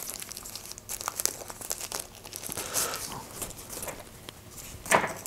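Protective wrapping crinkling and tearing as it is peeled by hand off a small wireless microphone unit, in many small crackles, with a louder crackle near the end.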